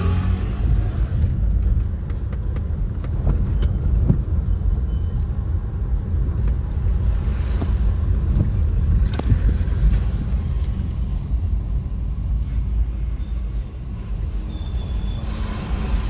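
Car cabin noise while driving slowly: a steady low rumble of engine and tyres on the road, heard from inside the car, with a few light clicks.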